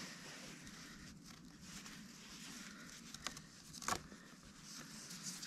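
Faint rustling and rubbing of cord being pulled through a lashing and drawn tight as a clove hitch is tied off, with a couple of short sharp ticks about three to four seconds in.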